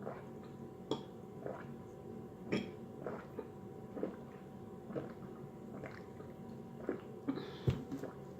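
A person drinking water in audible gulps, one swallow about every second.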